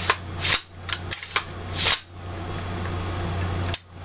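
Smith & Wesson M&P 15 rifle being handled as its upper and lower receivers are closed and the rear takedown pin pushed home: several sharp metallic clicks and small clatters, a louder, longer click about two seconds in, and one more click near the end.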